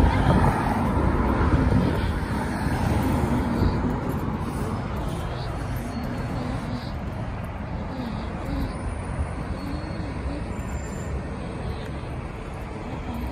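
Street traffic: cars and a city bus passing, a steady rumble that is a little louder over the first couple of seconds.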